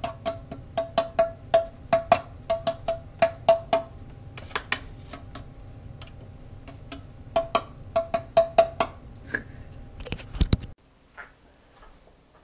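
Runs of sharp metallic clicks, each with a short ringing tone, about three to four a second, from the action of an Air Venturi Avenger PCP air rifle being worked by hand. A louder knock comes about ten seconds in.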